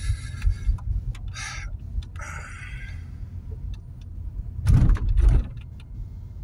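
Car driving slowly along a town street: a steady low rumble of engine and road, with short bursts of hiss and two loud low thumps about five seconds in.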